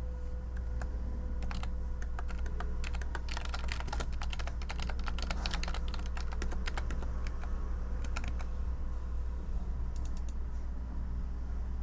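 Typing on a computer keyboard: runs of quick keystrokes, thickest in the middle, thinning out and stopping shortly before the end, over a steady low hum.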